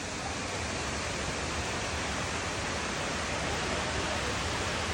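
Steady, even rush of falling water from the Dudhsagar waterfall.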